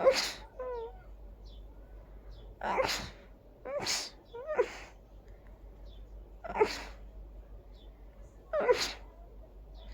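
A person's sneezing fit: six big sneezes at uneven intervals, two of them in quick succession near the middle, several opening with a short rising voiced 'ah' before the sharp burst.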